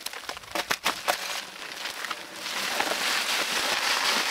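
Dry concrete mix pouring from a paper bag into a cardboard tube form: a rushing hiss that builds from about one and a half seconds in and stays loud. Before it come a few crinkles and knocks of the paper bag being handled.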